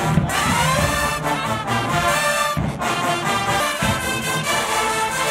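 Marching band's brass section playing a tune together, with sousaphones and horns.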